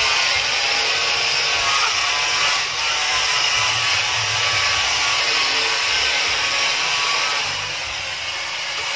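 Handheld electric angle grinder with a sanding disc running against a wooden plank, a steady whine with gritty scraping of wood. It drops a little near the end as the grinder comes off the wood.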